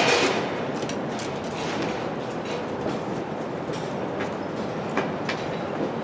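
CN freight train's cars rolling slowly during switching moves, wheels clicking over the rail joints against a steady rushing noise, with a few sharp clicks near the end.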